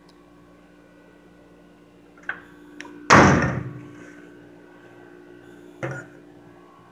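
A steel tool chest part slams shut about three seconds in. It gives one loud metal bang that rings and fades over about a second, with light clicks just before it and a sharp knock near the end.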